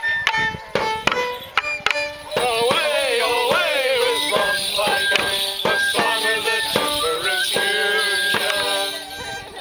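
A Morris dance tune played on an instrument, with the dancers' wooden sticks clacking together in sharp strikes during the first couple of seconds and their shin bells jingling. About two seconds in, the music grows louder and fuller.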